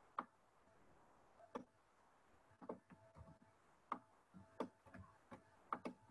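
Faint, irregular clicks of a computer mouse and keyboard, about seven spread over six seconds, over quiet room tone.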